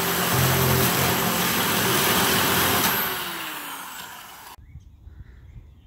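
Corded electric metal shears cutting through a corrugated steel roof panel: a loud, steady machine-and-cutting noise. About three seconds in the cut ends and the motor winds down, falling in pitch until it stops.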